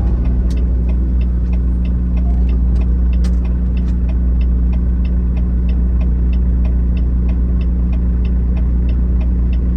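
A semi-truck's engine running steadily, heard from inside the cab as a constant low drone. A light ticking repeats about three times a second over it.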